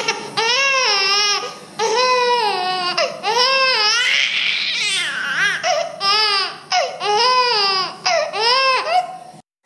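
Infant crying hard: a string of about eight wailing cries, each rising and then falling in pitch, with short catches of breath between them.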